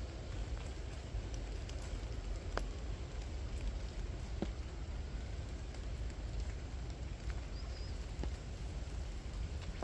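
Steady rain falling, an even hiss with scattered single drops striking sharply every second or so.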